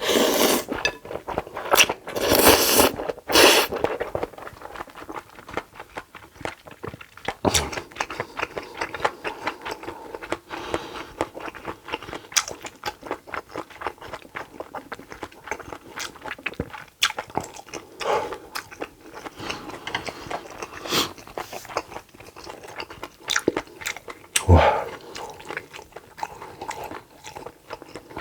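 Close-miked eating sounds: a person chewing and biting, with crunches. There is a cluster of louder strokes in the first few seconds and occasional sharp clicks after that.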